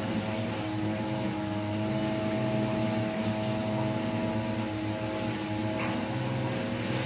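A steady motor hum with several held tones at an even level.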